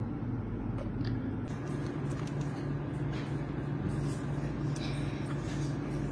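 Steady low hum throughout, with a few faint light clicks.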